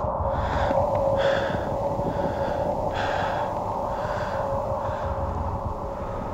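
A man breathing hard, about one breath a second, over a steady hum.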